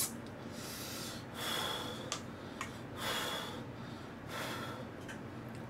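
Ramen noodles being slurped in four airy pulls of about half a second each. A sharp click at the start and a couple of small clicks fall between them.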